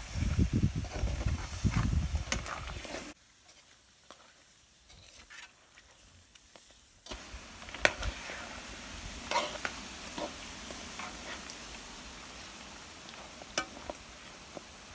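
Metal spoon stirring chunks of pork in a steel stock pot, scraping and clicking against the pot, over the sizzle of the simmering stew. Louder at first, then quieter for a few seconds before the stirring picks up again with a few sharp clanks.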